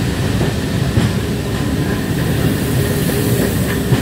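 Passenger coaches of a charter train rolling past along the platform: a steady rumble of wheels on the rails with occasional faint clicks.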